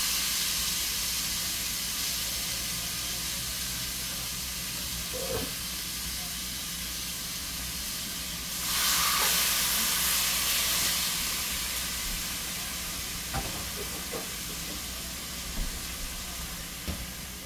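Chicken pieces sizzling as they fry in hot oil in a small skillet. The sizzle is loud at first and slowly dies down, swells again about nine seconds in, then tapers, with a few light clicks near the end.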